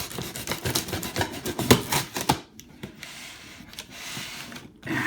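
A knife cutting open a cardboard shipping box through its packing tape: a run of short scratchy strokes, then one longer, smoother slicing sound for about two seconds that stops just before the end.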